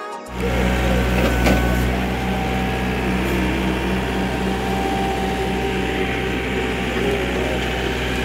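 Diesel engine of a John Deere compact tractor with a front loader running steadily as it works a dirt pile to fill a grave. The low engine note softens a little after about two seconds.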